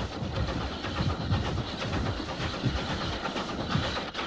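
Steam locomotive running, heard from the cab: a steady low beat about three times a second over a continuous rattle and clatter.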